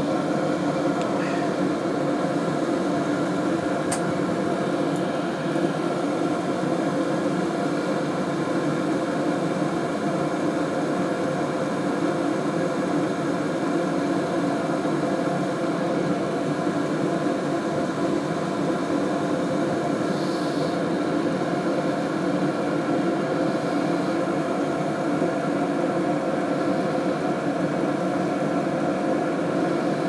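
Hcalory HC-A01 portable all-in-one diesel heater running steadily: its blower and burner make a constant hum with several steady tones.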